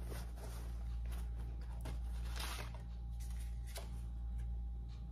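Heavy 33-ounce selvedge denim jeans being handled and set down: a few scattered soft rustles and brushes of the stiff fabric, over a steady low hum.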